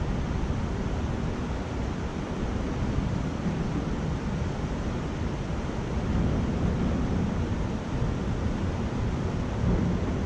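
Steady rushing of river water flowing over a shallow rocky riffle.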